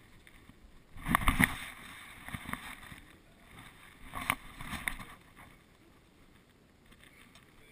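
Muffled bumps and rubbing from a camera strapped to a dog as it steps down carpeted stairs. They come in two short bursts, about a second in and again about four seconds in.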